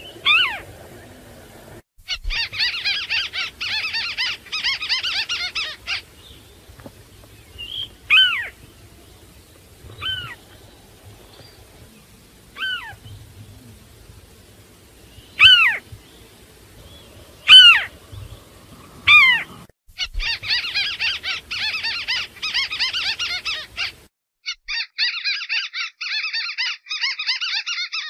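White-browed crake (tikusan) calling: loud single calls that slide sharply downward, repeated every few seconds, alternating with three long bouts of fast, dense chattering. The first bout comes about two seconds in and the last two near the end. The single calls are the loudest sounds.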